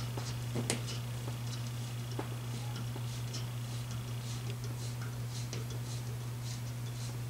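Scattered light ticks and clicks of hand work putting up a small hook for a power cord, over a steady low hum.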